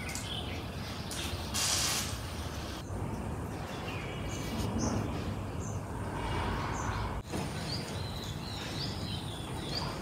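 Outdoor ambience: a steady low background rumble with small birds chirping, and a short loud hiss about two seconds in.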